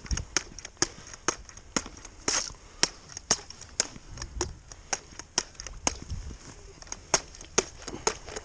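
Irregular sharp clicks and snaps, about two or three a second, with a few dull low thuds in between.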